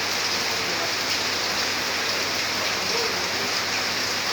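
Steady hiss of falling, splashing water, even throughout, with a faint low hum underneath.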